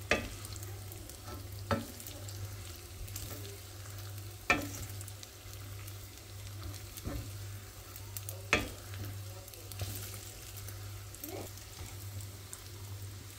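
Rice sizzling as it toasts in butter and olive oil in a stainless steel pot, stirred and turned with a wooden spoon that knocks against the pot now and then, most sharply about 4.5 and 8.5 seconds in. This is the toasting of the rice until the grains turn translucent, before the liquid goes in.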